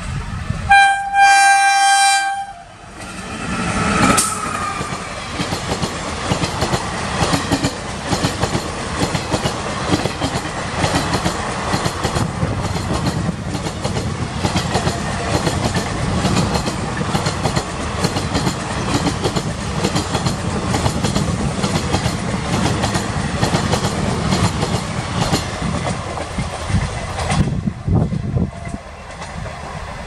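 WAP-1 electric locomotive sounding a short horn blast about a second in. Then the locomotive and its passenger coaches pass close at speed, the wheels clattering over the rail joints in a steady rattle that drops away shortly before the end as the train recedes.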